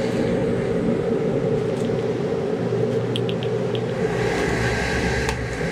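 Steady mechanical rumble and hum of a motor running, with a few light clicks about three seconds in; the rumble deepens about four seconds in.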